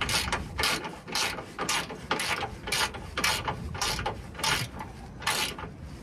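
Ratcheting socket wrench clicking in short strokes, about two a second, as the bolts of a front sway bar bushing bracket are run down by hand.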